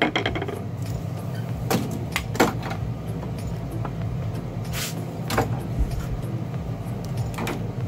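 Screwdrivers and other hand tools picked up and set down on a wooden workbench: several separate clicks and knocks, one a little longer about five seconds in, over a steady low hum.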